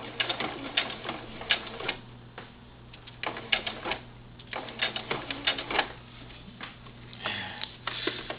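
Singer Futura sewing machine straight-stitching velcro to fabric in four short stop-start runs, the needle clicking rapidly in each run, as it does back stitches.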